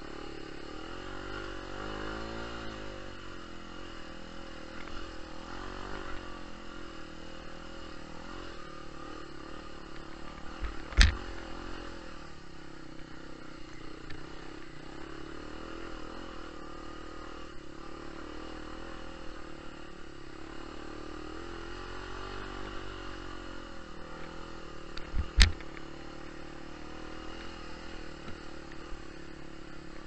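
Off-road motorcycle engine running, its pitch rising and falling as the throttle opens and closes on a dirt trail. Two sharp knocks stand out, about eleven seconds in and again near twenty-five seconds.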